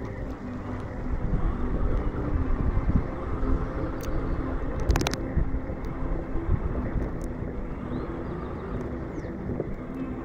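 Axial Ryft RC rock bouncer's electric motor and drivetrain running under varying throttle on sand, with a couple of sharp clicks about four and five seconds in.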